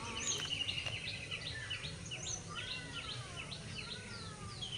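Birds calling: many short, quick high calls repeated throughout, with a couple of longer, slowly falling whistles in the middle.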